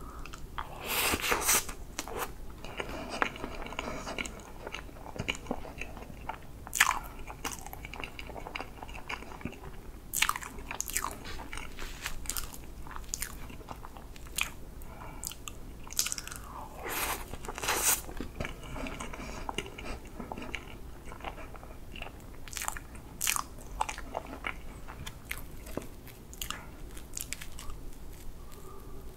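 Close-miked eating of whipped-cream chocolate sponge cake: bites followed by chewing with sharp clicking mouth sounds, coming in clusters every few seconds.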